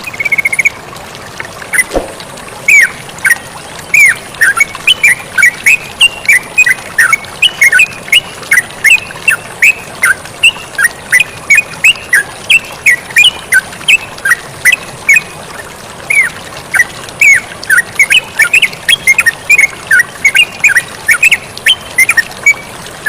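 Yellow-vented bulbuls (terucukan) chattering in a rapid, unbroken run of short, sharp chirps over a steady hiss of flowing water, with a single knock about two seconds in.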